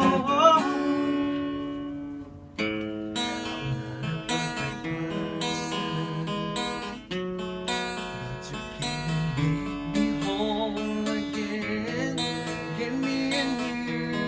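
Acoustic guitar strummed and picked in an instrumental passage of a live acoustic song, after a held sung note fades out at the start.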